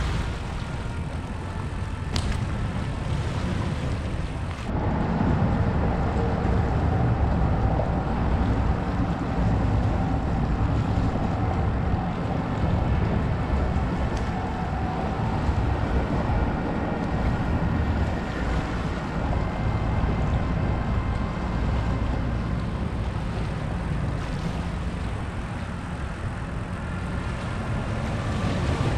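Wind buffeting the microphone in a steady low rumble, with small waves lapping against rocks. The wind grows stronger about five seconds in.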